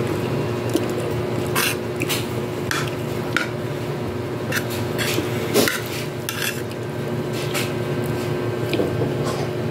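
Metal spoon scraping and clinking against a plate of rice while eating, about ten short strokes spread unevenly, over a steady background hum.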